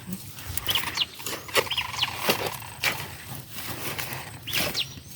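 Irregular rustling and short knocks, like someone working among leafy plants with a blade, with brief bird chirps now and then.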